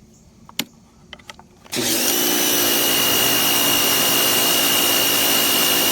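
A few clicks, then under two seconds in a Greenworks 2100 PSI compact electric pressure washer's motor and pump start up suddenly and run steadily with a high whine over a loud hiss as the wand sprays.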